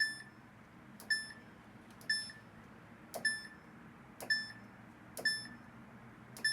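Samsung washing machine's control panel beeping as the program knob is turned step by step: a click and a short high beep about once a second, seven times.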